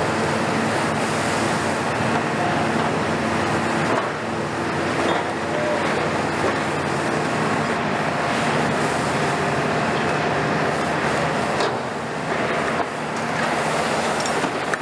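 Diesel engine and hydraulics of a KMC 400 long-front demolition excavator (built on a Hitachi ZX350LCD-6) running steadily under load, with faint creaking and scraping of steel roof sheeting and framework as the boom works in the roof.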